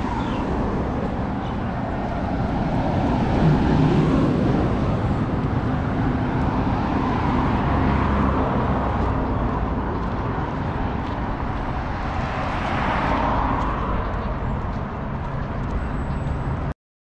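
City street traffic: a steady rush of cars, swelling as vehicles pass about four seconds in and again near the end. It cuts off abruptly just before the end.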